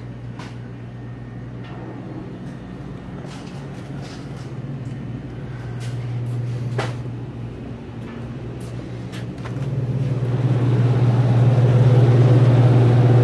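Steady low hum of commercial refrigeration, swelling about ten seconds in to a loud whirring rush as the walk-in cooler's fans are reached. A sharp click sounds near the middle.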